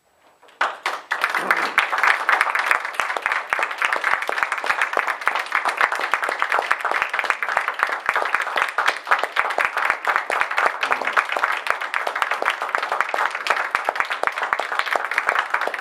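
A small group of people applauding, starting about half a second in and keeping up steadily.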